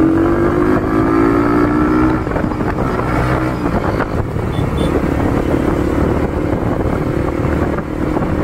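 Bajaj Pulsar NS200's single-cylinder engine running through a custom aftermarket exhaust while riding. The revs pick up at the start, then hold fairly steady as the bike cruises.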